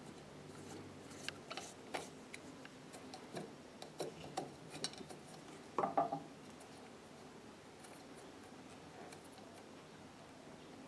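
Scattered small metallic clicks and clinks from hands and a screwdriver working at the needle area of an industrial sewing machine, with the loudest clatter about six seconds in.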